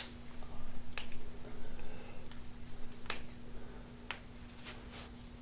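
About half a dozen sharp, irregularly spaced clicks, the first ones the loudest, over a faint steady low hum.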